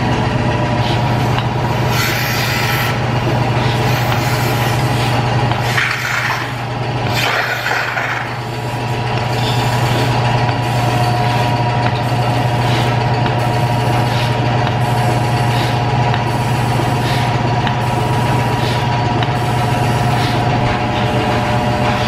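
Milking machine running: the vacuum pump gives a steady hum. Air hisses through the cluster as the teat cups go on, then a regular pulsing hiss comes about once a second.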